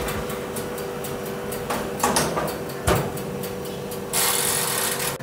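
Cake tin set onto the wire rack of a preheated Morphy Richards oven-toaster-grill and its glass door shut: metal clinks and knocks about two and three seconds in, over a steady hum from the running oven. Near the end comes a noisy burst about a second long as a control knob on the oven is turned.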